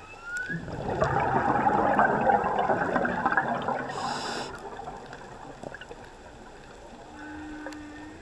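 A scuba diver's exhaled breath bubbling out of the regulator, loudest from about half a second in to about four seconds, ending with a brief hiss. Humpback whale song is faint underneath: a short rising whoop at the start and a steady low moan near the end.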